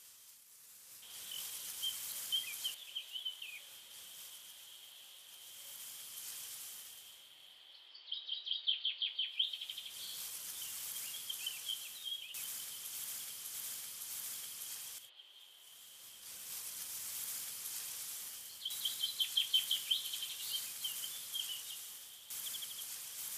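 Outdoor grassland ambience: a steady high hiss and a thin continuous high tone, with two bursts of rapid chirping trills, about eight seconds in and again near twenty seconds.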